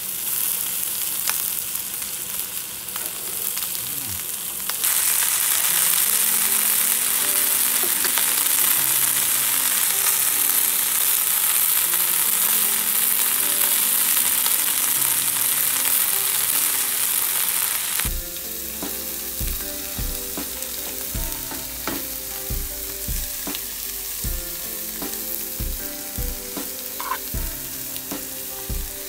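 Thick steak sizzling in hot fat on a barbecue. The sizzle swells loud for a long middle stretch, then drops suddenly to a quieter sizzle with light knocks.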